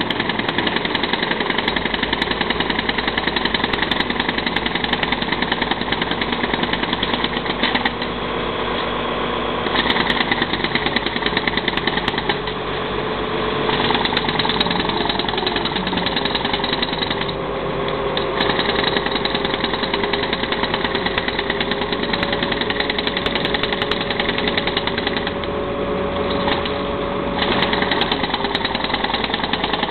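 Jackhammer breaking up the concrete bridge deck, hammering rapidly and steadily with a few short pauses, over a running engine.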